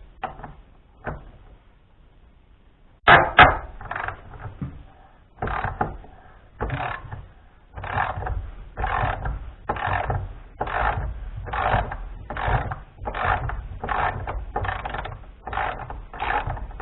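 Half-inch drive ratchet and socket worked back and forth, the pawl clicking in short even bursts about twice a second after a sharp clank about three seconds in. It is loosening a broken bolt on the sawmill's activator arm.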